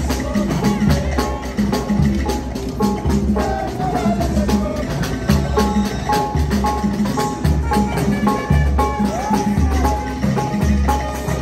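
Music with a steady beat: a repeating bass line under percussion and short repeated melodic notes.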